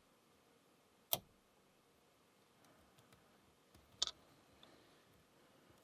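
Lock pick working the pins of a Burg Wächter Karat pin-tumbler padlock: two sharp metallic clicks about three seconds apart, with a few faint ticks between.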